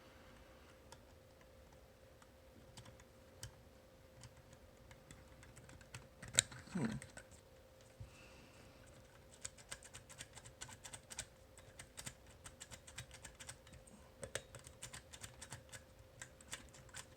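Faint, small clicks of a homemade disc-detainer pick turning the discs inside an Abloy Classic cam lock, sparse at first and coming rapidly and densely in the second half, as the picker tries to bounce the discs into their gates. A brief sound falling in pitch stands out about six to seven seconds in, over a faint steady hum.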